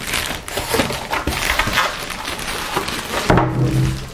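Expanded polystyrene packing foam squeaking and creaking against the PC case as it is pulled out of its foam end caps, with a plastic bag rustling. It gets louder near the end.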